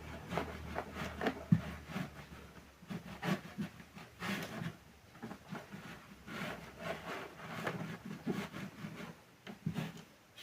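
Irregular knocks, taps and rubbing scrapes from handling parts and tools while working on an active speaker, with a low hum fading out about a second in.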